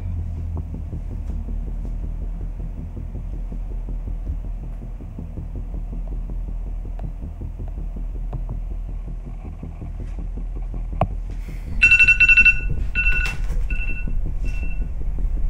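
A steady low drone, then, about twelve seconds in, a phone's electronic ringtone sounds in four short beeps, the first the longest.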